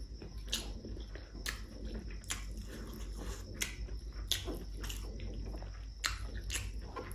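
Close-miked chewing of a mouthful of pork curry and rice, with wet mouth clicks and smacks scattered irregularly through it. A low steady hum sits underneath.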